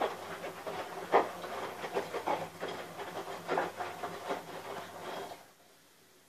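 A pewter tankard handled and turned in the hand, giving several short knocks and rubs, over a steady mechanical hum; both stop suddenly about five and a half seconds in.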